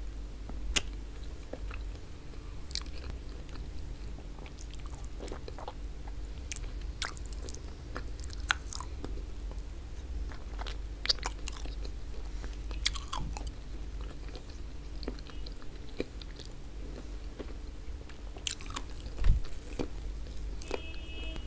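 Close-miked wet chewing and mouth smacks of someone eating oxtail tagine and bread with their fingers, with short clicks scattered through. A steady low hum runs underneath, and one low thump comes about 19 seconds in.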